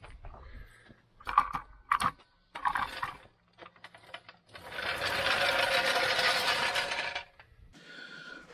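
A few short metal clanks from a hydraulic floor jack being let down, then a steady rattling rumble lasting a few seconds as the jack is rolled away on its casters.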